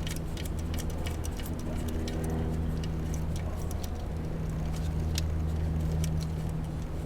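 Ratchet and 10mm socket clicking irregularly as the ignition coil's mounting nut is loosened, with small metal clinks, over a steady low hum.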